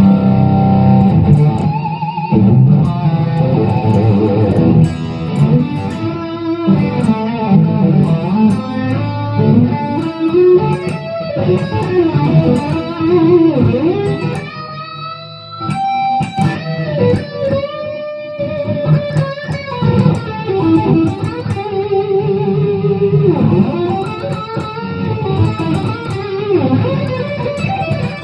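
Epiphone Les Paul Custom electric guitar with Gibson 490 humbuckers played through an overdriven amp, with a fat tone. Single-note lead lines with string bends and sustained notes, easing off briefly about halfway through before carrying on.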